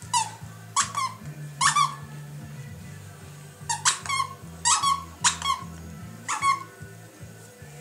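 Plush squeaky Santa toy squeaking again and again as a West Highland white terrier chews it: short squeals in irregular clusters, about eight to ten in all.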